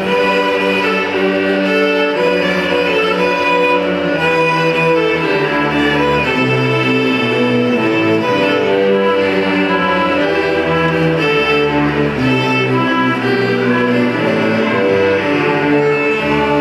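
A middle school string orchestra of violins, cellos and double basses playing a piece, with sustained bowed notes that move from one pitch to the next every second or so.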